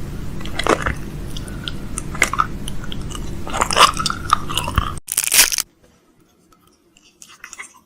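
Close-up irregular crunching and clicking over a low hum. A loud burst about five seconds in, then it cuts off abruptly to near quiet with a few faint clicks.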